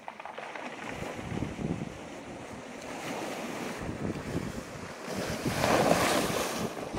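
Sea surf breaking and washing up a pebble beach and around boulders, with wind buffeting the microphone. A louder wave surges in close about six seconds in.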